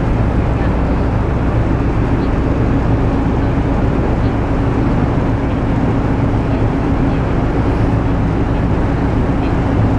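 Car ferry's machinery droning steadily on deck, an even rumble with a low hum running under it.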